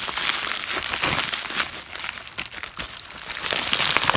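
A white plastic shipping mailer and the clear plastic packing inside it crinkling as a hand rummages in the bag. The crackling is continuous and gets louder in the last second.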